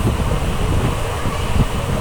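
Moving passenger train running steadily, a continuous low rumble of wheels on rails, with wind buffeting the microphone.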